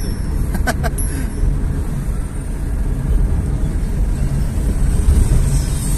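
Road and engine noise inside a moving car's cabin: a steady low rumble, with two short clicks just under a second in.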